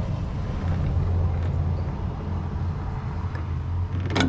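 Steady low mechanical hum, with one sharp knock about four seconds in.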